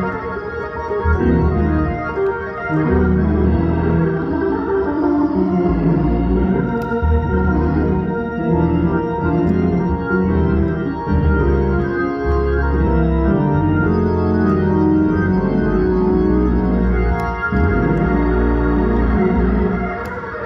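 Organ music: sustained chords over a deep bass line, changing every second or so.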